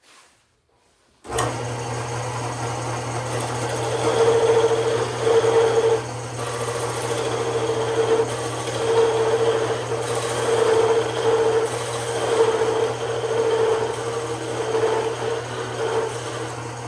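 A woodworking power tool's motor starts abruptly about a second in and runs steadily, with a rasping cutting or sanding sound on wood rising and falling over its hum.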